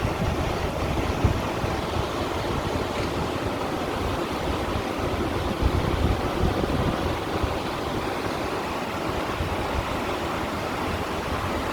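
Sea water washing against shore stones: a steady, unbroken wash of small waves.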